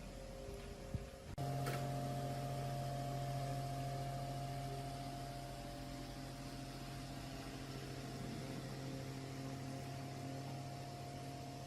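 Restored electric table fan switched on about a second in, its motor then running with a steady electrical hum.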